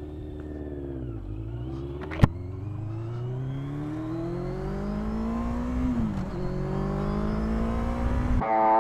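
Yamaha FZS600 Fazer's inline-four engine through a Black Widow stainless full exhaust system, accelerating through the gears: its pitch climbs steadily, drops at upshifts about a second in and again about six seconds in, then climbs again. There is one sharp click a little after two seconds. Guitar music cuts in near the end.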